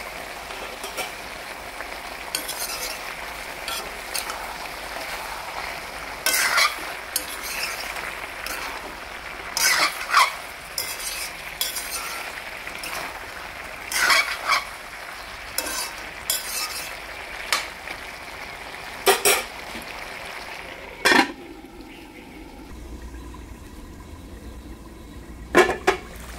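Pork and vegetable pieces sizzling as they fry in a metal wok, with a metal spatula scraping and clinking against the pan every few seconds as the mix is stirred. The sizzle grows quieter about three quarters of the way through.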